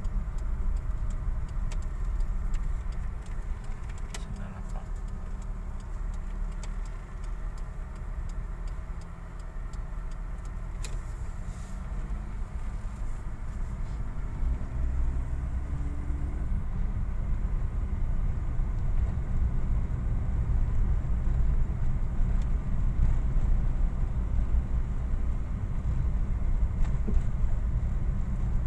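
Car interior: a steady low drone of engine and tyres while driving. The engine note rises briefly around the middle, and there are a few faint clicks.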